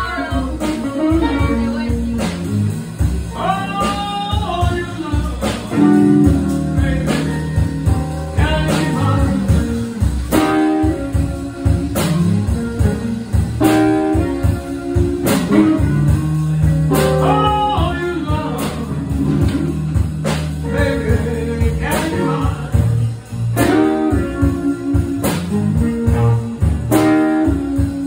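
Live band playing blues, with guitar lines to the fore.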